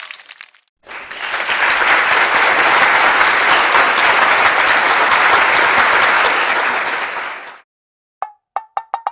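Applause: many hands clapping in a dense, steady patter for about seven seconds, then stopping. Near the end comes a quick run of short pitched pops.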